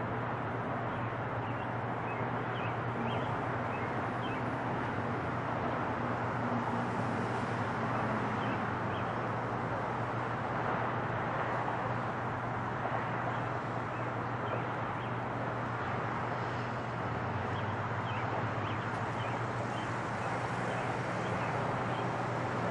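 A steady, even roar with a low hum beneath it, while small birds chirp again and again over the top.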